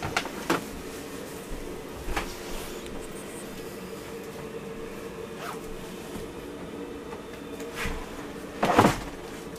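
Steady low hum inside a motor cruiser's cabin, with a few light knocks and handling noises and a heavier double thump near the end as a floor panel is lifted.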